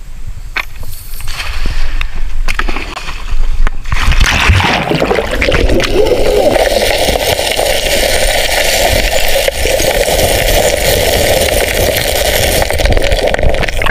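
Rushing river water splashing and gurgling, a few scattered knocks at first, then a steady loud rush from about four seconds in.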